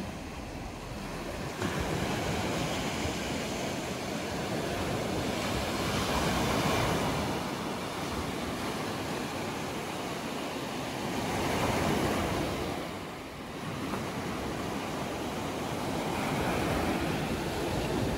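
Black Sea surf: waves washing in, the sound swelling and ebbing every five or six seconds.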